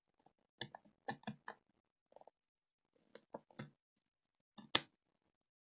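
Small sharp clicks and clinks of a hot air rework tool's nozzle being changed for a bigger one, in a few short clusters, the loudest a little before the end. The hot air is not blowing.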